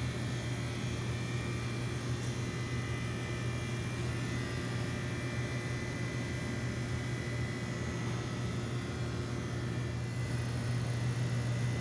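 Steady low machine hum of a supermarket's building machinery, with faint steady high-pitched tones above it, getting slightly louder near the end.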